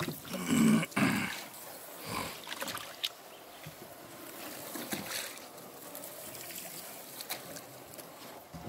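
Small boat moving slowly through lakeside reeds: faint water sounds along the hull and a few soft knocks. A short, loud burst of a person's voice about a second in.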